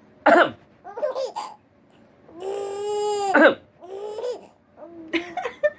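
A baby laughing and babbling, with one held high-pitched squeal of about a second in the middle. Short, sharp coughs break in, the loudest just after the start.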